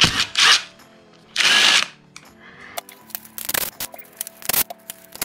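DeWalt cordless drill-driver spinning out clutch-cover bolts in short loud bursts, then a run of sharp metallic clicks as the bolts and tool are handled, over background music.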